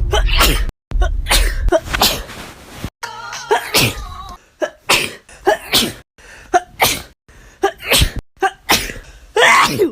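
A person sneezing over and over in a rapid sneezing fit, one sharp sneeze after another, with abrupt cuts between them.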